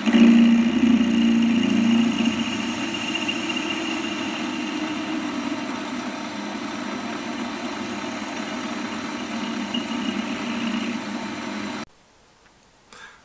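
Warco WM180 bench lathe running, facing the end of an aluminium block: a steady motor and spindle hum with the tool cutting, loudest in the first couple of seconds. The sound cuts off abruptly near the end.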